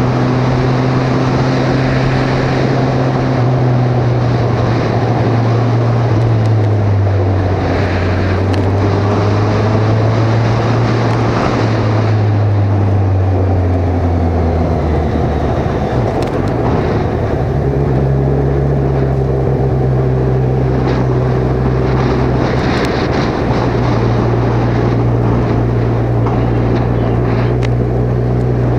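Kawasaki Ninja 1000's inline-four engine running on the move, heard from a helmet-mounted camera over a rush of noise. Its note sinks in steps through the first half, then climbs back about halfway through and holds steady.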